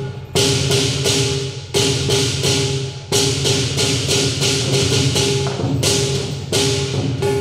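Traditional southern lion dance percussion: a big drum beating fast under clashing cymbals and gong, with a loud cymbal crash about every second and a half.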